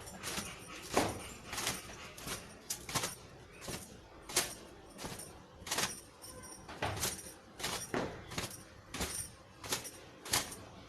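A towel being worked through wet hair in quick, short strokes, about two a second.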